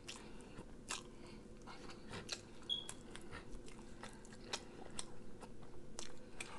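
Close-miked wet chewing of rotisserie chicken, with many short mouth clicks and smacks. A brief high squeak sounds about three seconds in.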